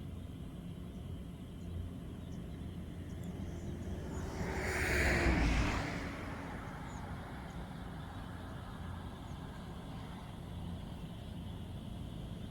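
A motor vehicle passes close by about halfway through, getting louder and then fading, its pitch dropping as it goes past. Under it runs a steady low engine drone.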